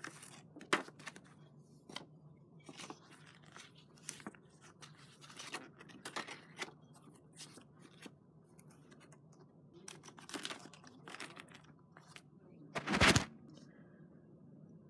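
Paper being handled: a folded ocarina fingering-chart booklet and a card picked up and moved on carpet, giving scattered short rustles and taps, with one louder handling noise about 13 seconds in.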